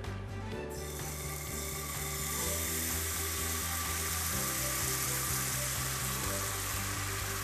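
Tuile batter of water, oil and flour sizzling in a hot nonstick frying pan, the hiss starting about a second in as the batter is squeezed in and then holding steady: the water boiling off so the oil and flour set into a lacy coral-like crisp.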